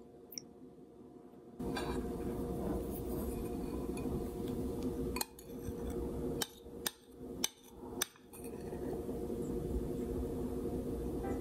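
Several sharp clinks of a metal spoon against a glass bowl, a few seconds apart, as whipped dalgona coffee foam is scooped out. They sit over a steady background hum that starts a second or two in.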